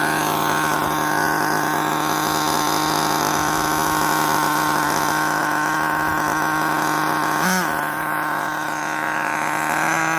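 Radio-controlled Rustler car, fitted with a Jato two-speed transmission, running at a steady high speed with a constant high pitched drone. The pitch dips briefly and comes back about seven and a half seconds in.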